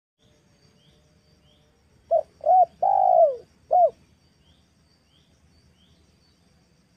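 Female spotted dove cooing one phrase of four notes about two seconds in: two short coos, a longer falling coo, then a short final coo. This is the female's call used to lure male spotted doves. Faint high rising chirps of another bird repeat in the background.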